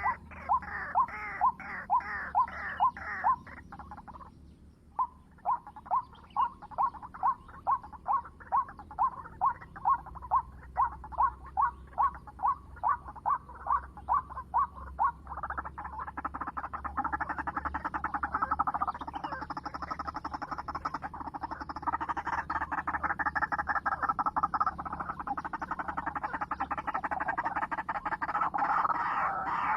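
White-breasted waterhen calling: a steady series of loud croaking 'kru-ak' notes, about two and a half a second, with a short break. About halfway through, the notes run into a dense, continuous stream of rapid calls.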